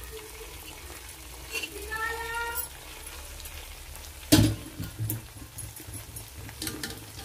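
Rice and whole spices frying in oil in a cooking pot, a low sizzle with stirring. There is a short rising whine about two seconds in, and a single sharp knock a little after four seconds, followed by small scraping clicks.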